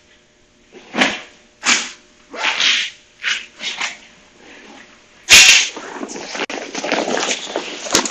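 Close rustling and handling of a nylon hi-viz shell jacket as it is put on: several short rustles, a sharp loud crack about five seconds in, then continuous rustling with footsteps.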